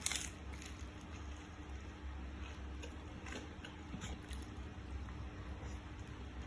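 Close-miked eating: a sharp crisp bite at the start, then chewing with scattered small crunches of fried food, over a steady low hum.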